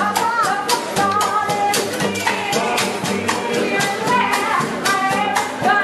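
Live street band playing up-tempo music, with a fast, steady percussion beat, tambourine-like jingles and a wavering melody line over it.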